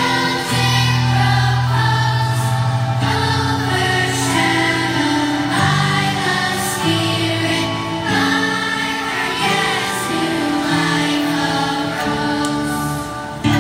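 Large school children's choir singing a hymn together, with held low accompaniment notes underneath.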